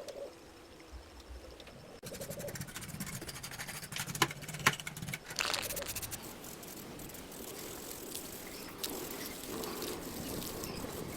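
Clicking, rattling and scraping of hand work on a small metal model car, with two sharp clicks a little over four seconds in. It settles into a steadier scratchy sound.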